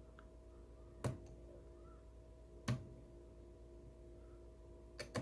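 Three faint, sharp clicks spread over a few seconds, from a Lishi pick being worked in an Infiniti G35 ignition lock cylinder, over a low steady hum.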